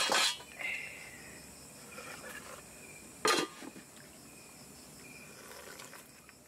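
Night insects chirping steadily in a thin, high trill, with a sharp clatter of metal cookware at the start and another clank about three seconds in.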